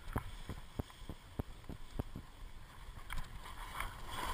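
Skis sliding and scraping over packed snow on a downhill run, with a string of short sharp clicks and knocks along the way. A louder snow hiss builds near the end as the skis carve harder.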